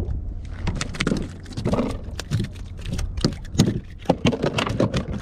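Irregular clicks and knocks, several a second, some with a dull thud beneath, aboard a fishing kayak.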